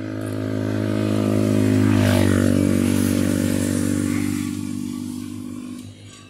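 Motor scooter engine running steadily, getting louder over the first two seconds and then easing off and fading away near the end.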